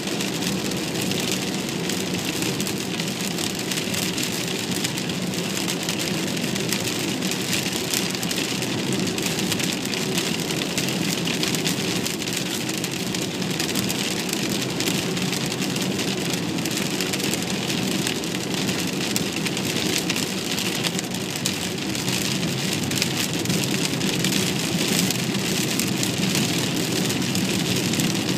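Rain falling steadily on a moving car, heard from inside the cabin, over constant road and engine noise.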